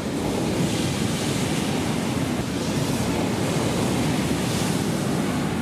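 Sea surf breaking on the beach: a loud, continuous wash of waves.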